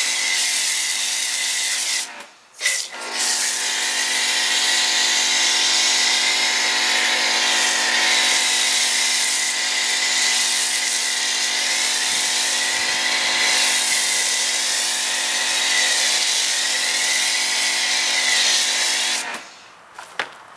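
Foam gun set to full foam spraying car-wash soap foam onto a car: a steady, loud hissing spray with a constant hum underneath. It is briefly cut off about two seconds in, then runs until it stops shortly before the end.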